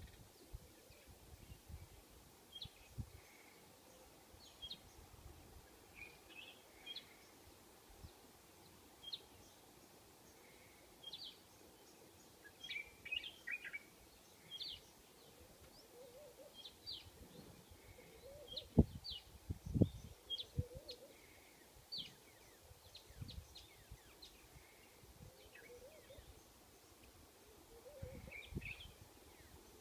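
Faint outdoor ambience with birds chirping in short, scattered calls, and a couple of low thumps about two-thirds of the way through.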